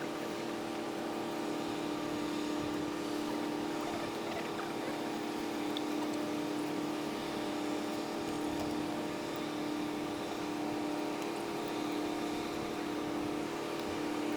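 Steady drone of boat engines: an unchanging hum with a held tone and overtones over a constant hiss.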